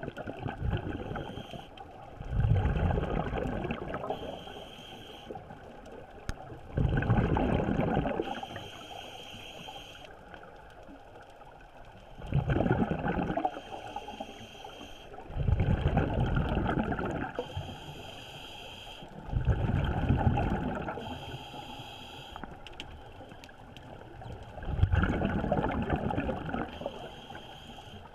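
Scuba diver breathing through a regulator, recorded underwater: the regulator hisses on each inhale, and a rumbling gush of exhaled bubbles follows, about one breath every four to five seconds.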